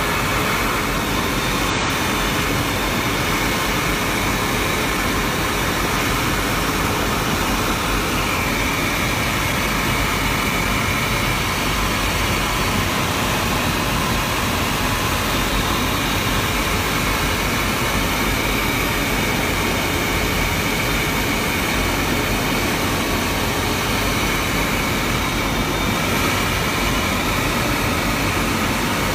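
Steady, unchanging jet engine and airflow noise heard inside the cockpit of a Tornado GR4 in flight, from its twin RB199 turbofans.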